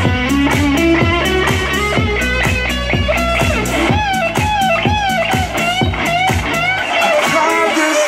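W-King Bluetooth speaker turned up to full volume, playing rock music: electric guitar over a steady drum beat.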